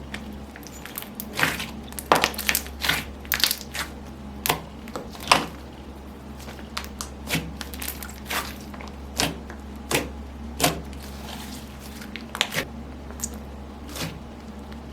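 Slime being squeezed and worked by hand, giving irregular sharp pops and crackles, at times several a second.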